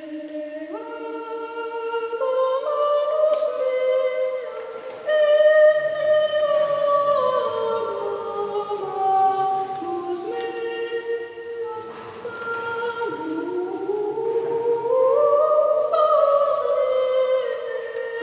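A high voice singing unaccompanied, holding long notes that step from pitch to pitch, with a slow upward slide about two thirds of the way through.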